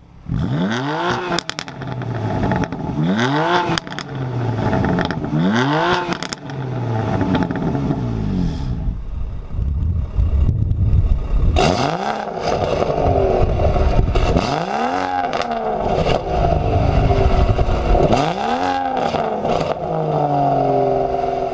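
Two BMW turbocharged straight-six engines free-revved in turn in Sport mode: a stock M4 Competition Pack with its factory performance exhaust, and an M140i with an aftermarket downpipe and BCS midpipe. The first engine gives three quick blips up and back to idle. A few seconds later the second, louder engine with a fuller mid-range tone gives three more.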